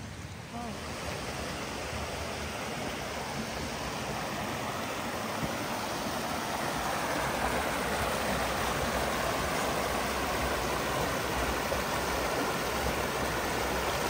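Mountain brook rushing and splashing over rocks and small cascades, a steady hiss of water that grows gradually louder.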